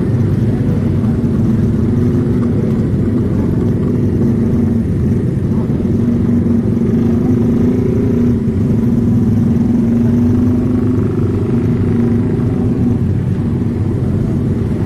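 A vehicle engine running steadily under low road rumble, heard from on board while moving through traffic; its tone wavers slightly with the throttle.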